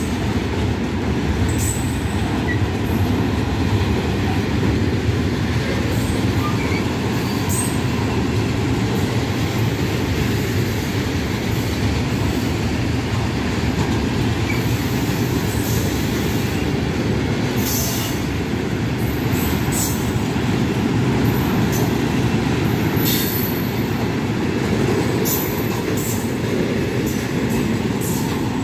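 Freight train of rail tank wagons rolling past at speed: a steady, loud rumble of wheels on rail, with brief high squeals from the wheels now and then.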